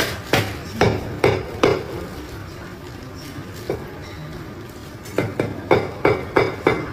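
Heavy cleaver chopping braised goose on a thick wooden chopping block: a quick run of five sharp chops, a pause with one light chop, then another run of about six, some two to three chops a second.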